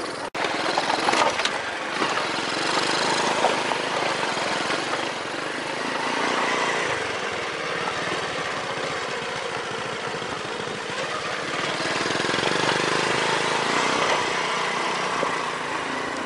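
Small motorbike engine running as it rides a rough dirt track, mixed with steady wind noise on the microphone.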